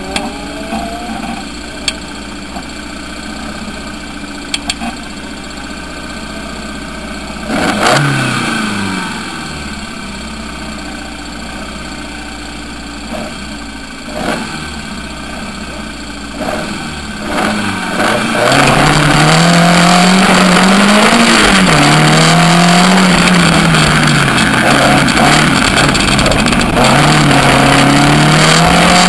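Suzuki Swift GTi twin-cam four-cylinder engine in a sprint car, ticking over at the start line with one short blip of revs. About two-thirds of the way in it launches hard and accelerates away, the revs climbing and dropping several times through the gear changes.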